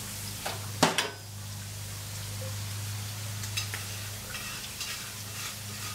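Metal lid of a gas grill swung shut with a sharp double clank about a second in. Portobello mushrooms then sizzle lightly on the grate with scattered small clicks, over a steady low hum.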